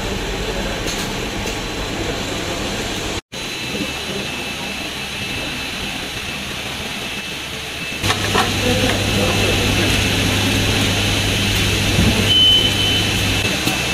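Factory noise of an automated motor assembly and test line: steady machine running with a faint high whine, a low electrical hum that comes in about eight seconds in and stops near the end, and a short high beep about twelve seconds in.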